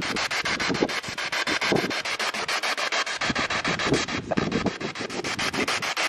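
P-SB7 spirit box sweeping through radio frequencies: hissing static chopped into rapid fragments, about ten a second.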